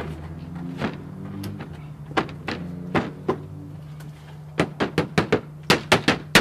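Sharp knocks and taps as the sheet-lead back gutter is worked into position behind the chimney: a few spaced ones, then a quick run of about ten near the end, over a low steady hum.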